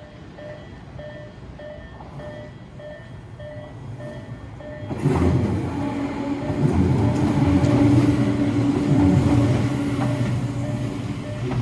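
Japanese level-crossing alarm ringing its steady kan-kan, a little under two rings a second. About five seconds in, a Tobu 8000 series train runs through the crossing, its motors humming and wheels rumbling loudly over the bell.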